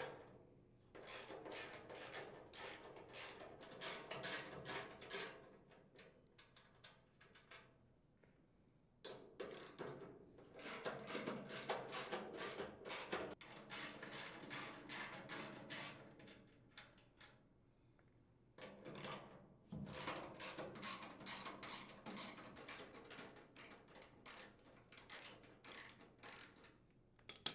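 Ratchet wrench with a half-inch socket clicking faintly as it unthreads steel mounting nuts. The clicks come in three long runs of rapid strokes with short pauses between.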